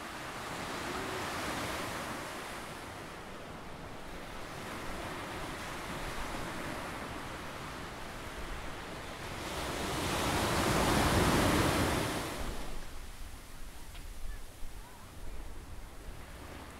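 Ocean surf: a steady wash of waves breaking on the beach, with one larger wave swelling to a peak about two-thirds of the way through and then fading.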